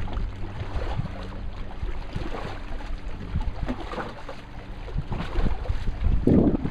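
Wind rumbling on the microphone, gusting louder near the end, over a faint steady low hum that fades out about five seconds in.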